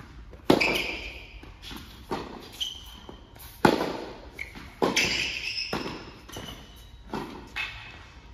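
Tennis rally on an indoor hard court: a ball struck by racquets and bouncing, sharp hits about every one to two seconds that echo through the hall, with short high squeaks of shoes sliding on the court between them.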